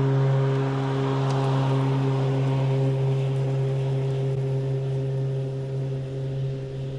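Toro Revolution Grandstand battery-powered mower running with its blades spinning: a steady electric hum with a clear low tone and overtones over a rushing noise. The rushing fades and the sound gets quieter toward the end.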